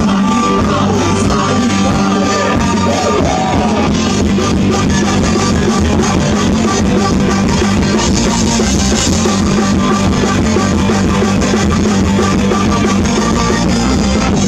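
Live rock band playing loudly through a PA: electric guitars and a drum kit, continuous throughout.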